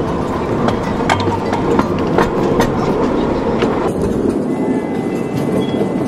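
Ride-on miniature train driven by a small diesel engine, rolling steadily along its track, with the wheels clicking over the rails every half second or so.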